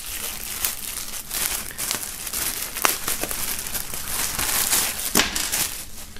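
Clear plastic bag crinkling and rustling as hands work a belt bag out of it, with a few sharp crackles about three and five seconds in.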